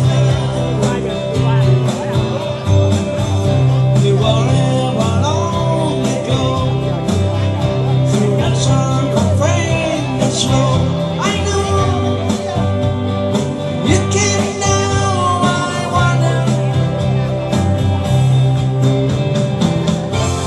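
Music with singing: a band with guitar and bass playing a country or rock-and-roll style song at a steady beat.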